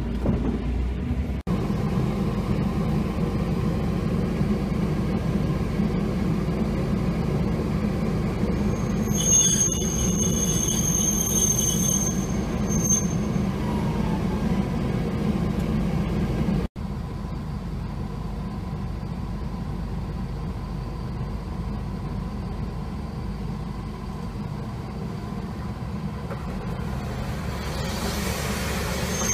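Steady rumble of a tram and road traffic, with a brief high-pitched squeal, typical of tram wheels, from about nine to thirteen seconds in.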